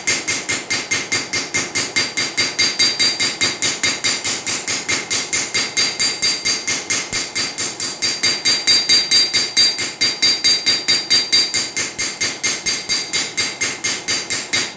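Hand hammer striking a railroad-spike froe blade on an anvil in a fast, even rhythm of about five blows a second, the anvil and steel ringing under each blow. These are light planishing blows that smooth out hammer marks and even the blade's thickness before grinding.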